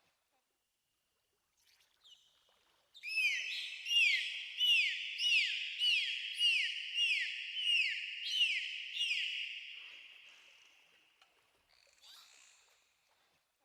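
Dolphin calls: a quick run of about a dozen high, squeaky chirps, each sliding down in pitch, about two a second. They start about three seconds in and fade out around ten seconds, with one short faint call near the end.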